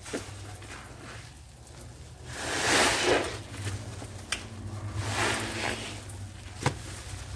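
Wet, soapy sponge being squeezed: two squishy swells of liquid sound, the first louder and about a second long, with a couple of sharp clicks between them.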